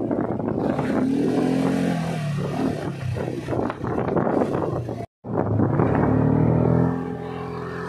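ATV engine running under load as the quad is ridden over sand, its pitch rising and falling with the throttle. The sound cuts out for a split second about five seconds in.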